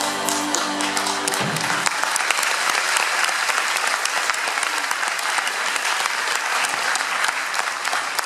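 Audience applauding, the clapping starting under the string orchestra's last held chord, which ends about two seconds in; the applause then carries on steadily.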